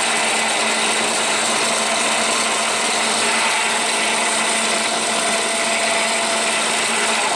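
Harbor Freight Central Machinery 8-inch benchtop drill press motor and spindle running steadily at high speed, with a gritty sound. The unbolted machine vibrates on the bench.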